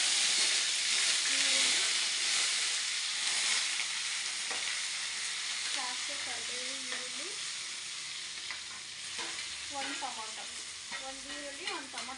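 Chopped onion and tomato sizzling in hot oil in a kadai, strongest at the start and slowly fading as they fry. A steel ladle stirs and scrapes through them.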